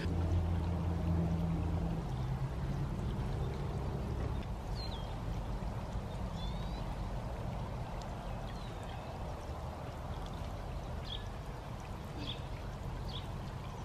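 Water splashing and trickling steadily in a tiered pineapple-topped garden fountain.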